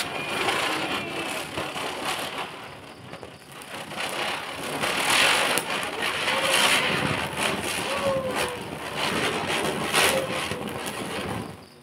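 Ground firework burning on the ground, a continuous rushing hiss of sparks with scattered crackles, swelling and easing in strength and dying away near the end.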